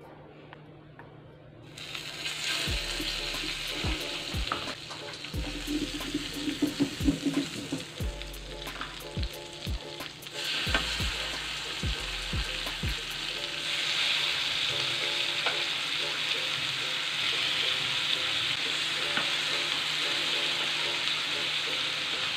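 Butter and pieces of blue marlin sizzling on a hot grill plate, starting about two seconds in, with scattered knocks and taps through the middle. The sizzle grows louder and steadier in the second half as more fish goes on.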